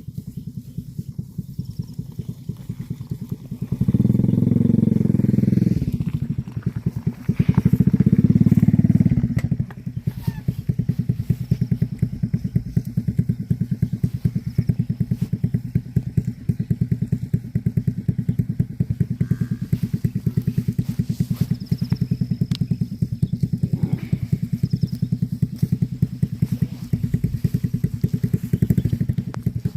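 An engine running steadily with rapid, even pulsing, and two louder stretches of about two seconds each, around four and eight seconds in.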